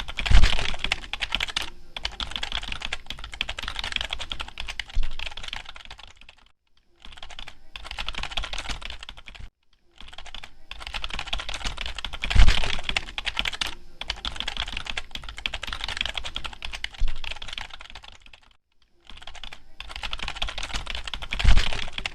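Continuous fast typing on a computer keyboard: rapid key clicks in runs of several seconds with brief pauses, and a louder, deeper key strike every four to five seconds.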